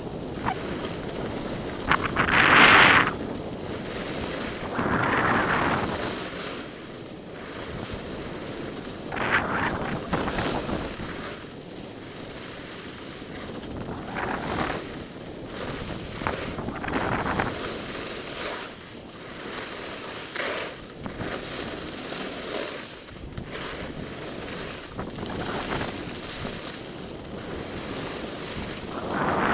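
Wind rushing over the microphone of a camera worn by a downhill skier, with a louder hissing swell every few seconds as the skis carve turns on packed snow.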